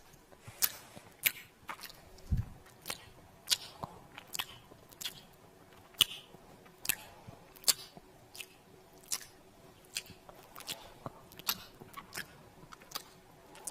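Close-up kissing sounds: a string of short, wet lip smacks at an irregular pace of roughly one to two a second, with a soft low thud about two seconds in.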